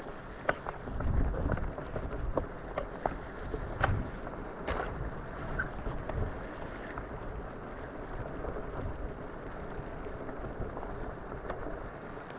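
Fat bike riding over a wet, rocky canyon bed: a steady rush of running water and tyre noise, with scattered clicks and knocks from tyres and bike over rocks. Low rumbling thumps come about a second in and again near four seconds.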